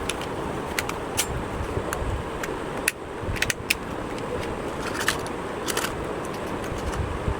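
A steady rushing background noise with a low rumble, with scattered sharp clicks and taps over it, several in quick succession about three and a half seconds in and again around five to six seconds in.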